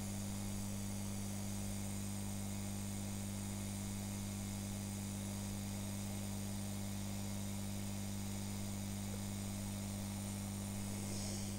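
Hot-air rework station blowing: a steady electrical hum with a higher overtone over a light hiss of air. The speaker puts the strong interference ("mucho acople") down to the heating element in the soldering station's supply.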